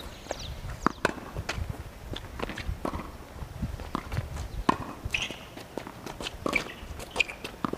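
A tennis rally on a hard court: sharp knocks of racket strikes on the ball and ball bounces at irregular intervals, with footsteps of the players moving on the court.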